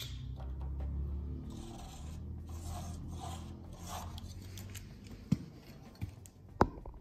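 A steel square being handled against a rusty steel truck frame: light scraping, then two sharp knocks near the end, over a low steady hum.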